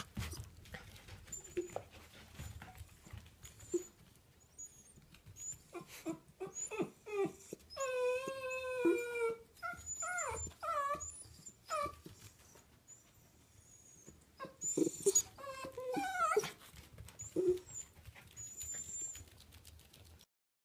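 Miniature dachshund whining and yipping in high-pitched calls that bend in pitch, including one long drawn-out whine about eight seconds in, with scattered light clicks and taps between the calls.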